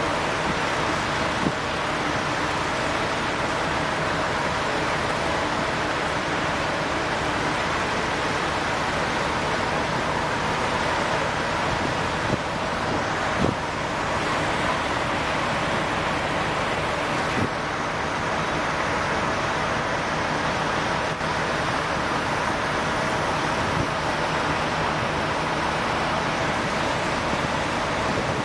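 Steady running noise of a fire truck at work, with the hiss of a fire hose spraying water and a few faint knocks.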